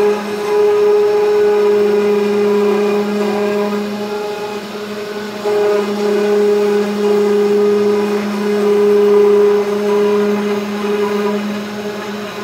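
CNC 3040 router's spindle running with a steady, high whine while its V-bit engraves a wooden board. The sound eases for about a second and a half partway through, then comes back at full strength as the bit cuts again.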